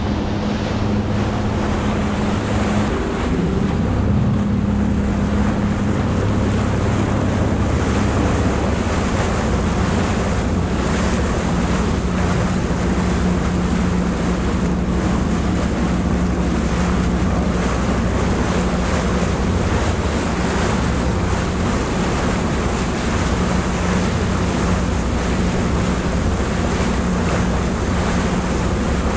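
A moving boat: wind buffeting the microphone and water rushing along the hull over the steady low hum of the boat's engine, whose note dips slightly about four seconds in.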